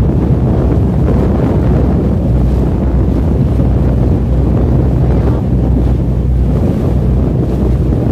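Heavy wind buffeting the microphone aboard a moving boat, over a steady low rumble and the wash of water.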